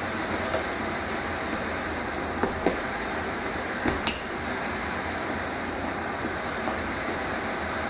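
Corded electric blower running steadily, pushing air through a long flexible corrugated hose. A few light knocks and clinks come about two and a half and four seconds in.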